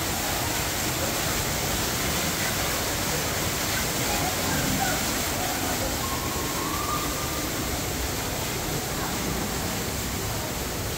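Steady rush of water from a small artificial waterfall pouring down a rock wall, with faint voices in the background.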